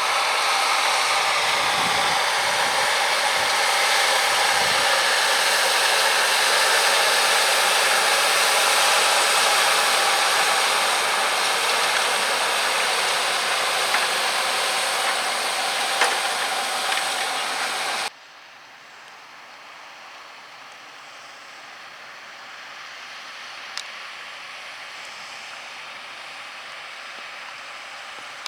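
John Deere 6195R tractor engine running under load while pulling a plough: a loud, steady drone with a whine on top. About 18 seconds in it drops suddenly to a much fainter, more distant tractor sound.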